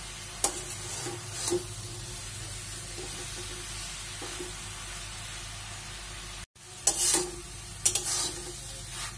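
Sweet potato leaves, potato and aubergine frying in a metal karai with a steady sizzle, stirred with a spatula that scrapes and knocks against the pan. There are a couple of strokes in the first half and several louder ones near the end. The sound drops out for an instant about two-thirds through.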